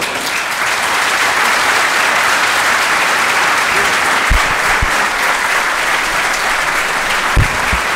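Audience applauding steadily, with a few short, dull low thumps about four and a half seconds in and again near the end.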